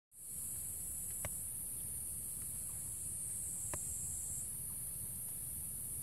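A steady, high-pitched chorus of insects, with a low rumble underneath and two faint clicks, about one and four seconds in.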